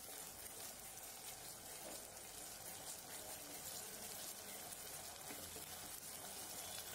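Faint, steady sizzling of chopped onions and ginger-garlic paste frying in hot oil in a pot, with light scraping of a stirring spoon.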